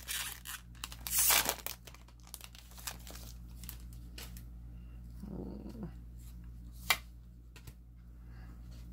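Foil booster pack wrapper crinkling and tearing as it is pulled open over the first second or two. Quieter handling of trading cards follows, with a single sharp click near the seven-second mark.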